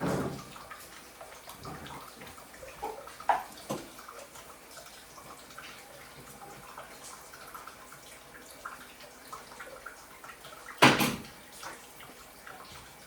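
Water running and dripping from a plumbing fitting that is not yet tightened to a good seal, with a few scattered knocks; the loudest, a single sharp knock, comes near the end.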